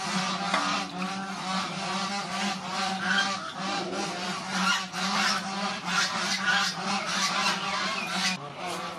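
Poultry calling: many honking calls overlapping continuously, thinning slightly near the end.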